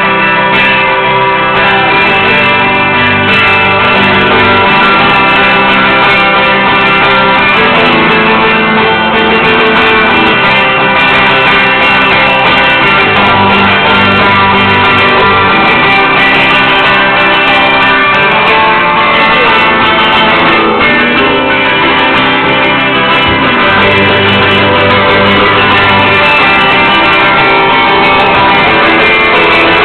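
Live band playing loud, dense music: guitar over many layered, sustained droning tones, with an even level and no breaks.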